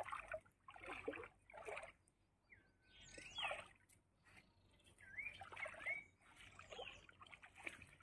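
Faint sloshing and trickling of shallow pond water as a fishing net is hauled through it by men wading. A bird calls twice with short whistled, sliding notes, about three and five and a half seconds in.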